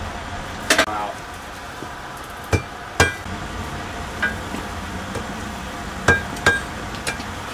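Hand hammer striking red-hot 5160 spring steel on an anvil to set a forge weld: about seven sharp, ringing metal-on-metal blows, irregularly spaced, over a steady background rush.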